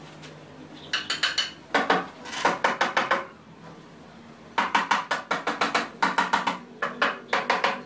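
A hammer tapping nails into the wooden plank top of a work table: quick runs of sharp, ringing metal-on-metal taps, several a second, broken by short pauses.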